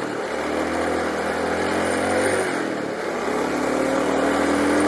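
Cruiser motorcycle engine pulling under acceleration: its note climbs steadily, dips at a gear change about two and a half seconds in, then climbs again.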